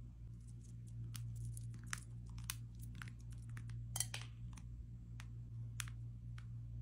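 Chocolate chips being sprinkled by hand: a scattering of small, irregular ticks and crinkles, busiest in the middle, with one sharper click about four seconds in.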